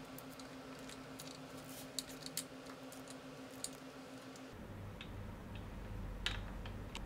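Faint light clicks and small knocks of an outboard motor's tiller arm and shift linkage being handled and swung up by hand. A low, pulsing rumble comes in about four and a half seconds in.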